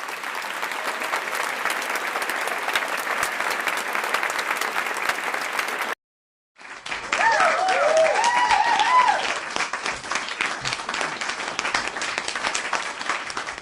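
Two applause recordings back to back: about six seconds of steady crowd applause that cuts off, then after a short silence a louder round of crowd applause with a few voices calling out in cheer near its start.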